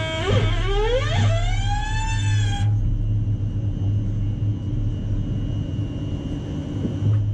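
Siemens Desiro Classic EMU's electric traction drive whining as the driven wheel slips on the rusty, wet rail. The pitch sweeps up and down and then cuts off suddenly just under three seconds in. A low steady hum and rumble carry on after it.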